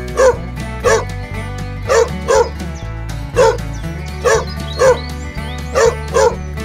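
A dog barking in short, sharp yelps, about nine barks mostly in quick pairs, over steady background music.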